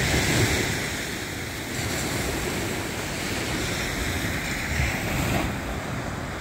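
Small surf washing onto a sandy beach, a steady rushing hiss that swells twice, with wind rumbling on the microphone.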